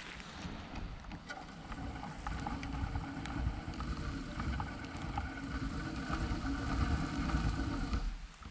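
Steady rush of creek water running over shallow rapids, with wind buffeting the microphone as a low rumble; it cuts off abruptly at the very end.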